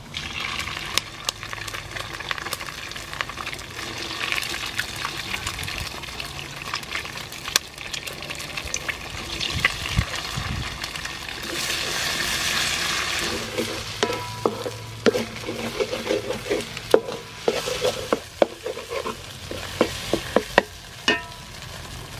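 Egg frying with garlic in hot oil, a steady sizzle as it is stirred in the pan. From about the middle on, a utensil scrapes and knocks against the pan in quick clicks.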